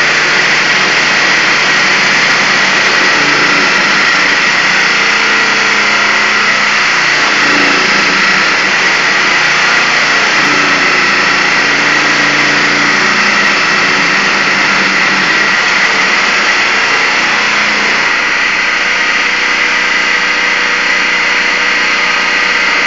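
Diamond-segmented circular saw cutting through a reinforced concrete slab: a loud, steady grinding whine with a high tone that holds throughout, the lower hum changing about eighteen seconds in.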